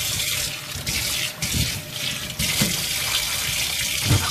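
Kitchen tap running water into a stainless steel sink, the stream splashing across the basin as it is rinsed. The flow cuts off sharply at the end.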